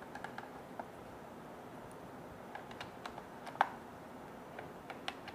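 Scattered light clicks and taps of cable plugs being handled and pushed into the rear output jacks of an Audient Evo 4 audio interface, with one sharper click about three and a half seconds in.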